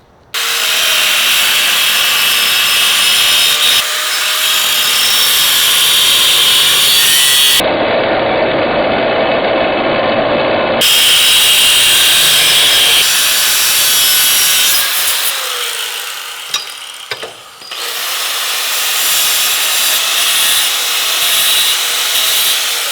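Angle grinder with a cut-off disc cutting through the steel top tube of a Harley-Davidson Sportster frame, running steadily. About two-thirds through it dips and winds down with a falling pitch, then cuts again.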